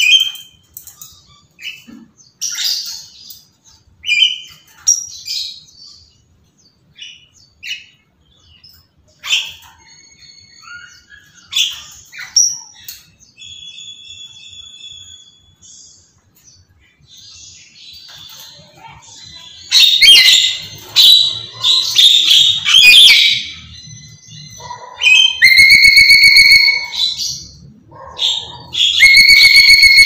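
Black-capped lory calling: short chirps and whistles at first, then loud screeching from about two-thirds in, ending in long, harsh, rasping screams.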